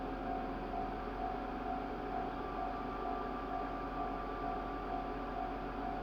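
Japanese level-crossing warning bell ringing steadily at about two dings a second, heard from inside a car waiting at the crossing. A second, higher steady tone joins about two seconds in.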